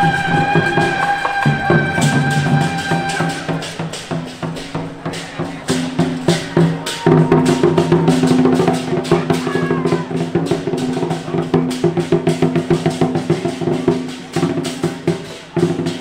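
Lion-dance percussion band playing a fast, driving beat on drums and clashing cymbals, with hits coming in a dense, even stream. A held high tone sounds over the beat for the first three seconds or so.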